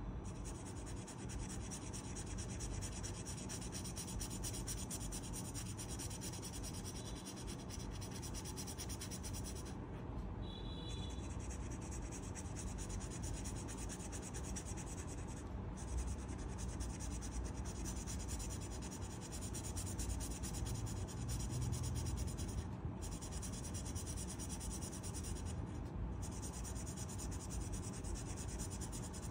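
A colouring pen rubbing back and forth on paper in quick, continuous strokes, filling in an area of a colouring page.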